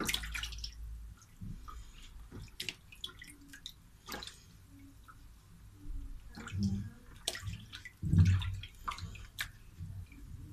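Water sloshing and dripping in a basin as pieces of rabbit meat are washed by hand, with irregular small splashes. A louder slosh comes about eight seconds in.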